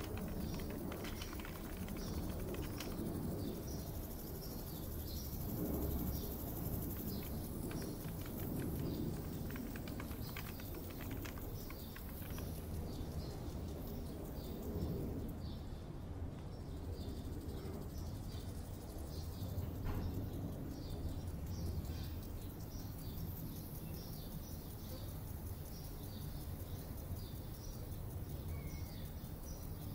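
Mixed park-and-office ambience: small birds chirping in short, evenly repeated notes over a steady low rumble, with a high hiss that swells and fades and scattered light clicks in the first half.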